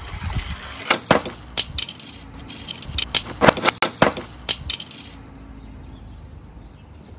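Die-cast Tomica toy car clattering down a wooden slope and over a metal ramp, tumbling over: a quick, irregular run of sharp clicks and clinks. The knocks stop about five seconds in.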